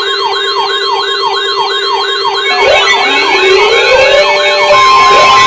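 Electronic siren yelping in fast falling sweeps, about three to four a second, over a steady held tone. About halfway through, a slower rising wail joins in and the sound grows louder.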